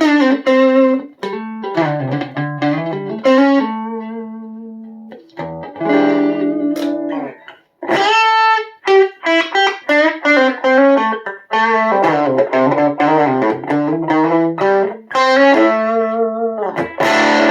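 Electric guitar played through effects in melodic single-note phrases, some notes held and left to fade, with a few short pauses. Just before the end it changes to a denser, fuller sound.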